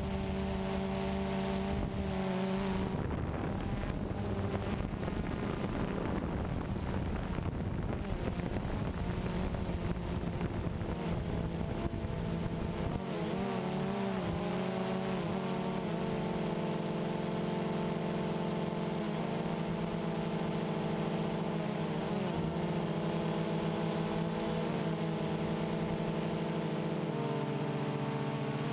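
DJI Phantom 2 quadcopter's four motors and propellers buzzing steadily in flight, picked up by the onboard camera. Their pitch wavers for a few seconds about halfway through as the drone manoeuvres, then settles to a new pitch near the end.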